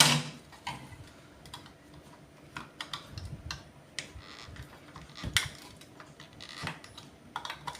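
Scattered light clicks and taps of a screwdriver and a metal contact working against the plastic housing of an Anderson power connector as a stiff contact is pried loose, with one louder knock about five seconds in.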